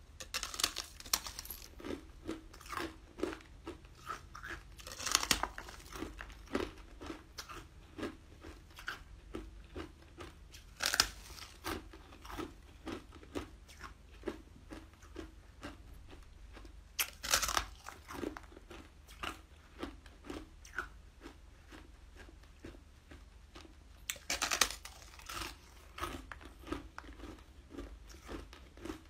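Close-up crunching as a person bites into a thin, brittle flat sheet of food. There are five loud crunchy bites, roughly every six seconds, and steady chewing clicks run between them, about two a second.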